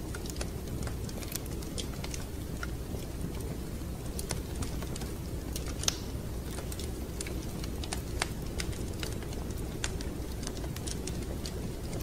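Wood fire in a fireplace crackling: irregular sharp pops and ticks over a steady low rumble.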